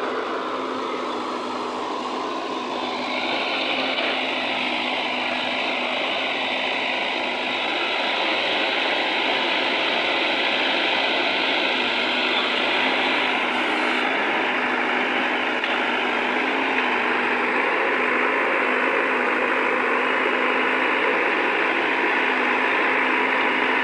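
Diesel engine of a JCB 3DX backhoe loader running steadily as the machine works.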